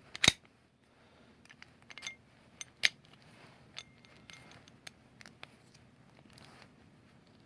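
Master Lock 6127 padlock being worked with its key: one sharp metallic click about a quarter second in, then a string of small clicks and scrapes as the key and shackle are handled in the freshly repinned lock.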